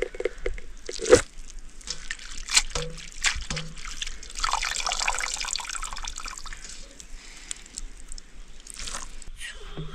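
Water being handled in kitchen vessels: a stretch of pouring or splashing about four seconds in that lasts roughly two seconds, among scattered knocks and clinks of utensils, the loudest a sharp knock about a second in.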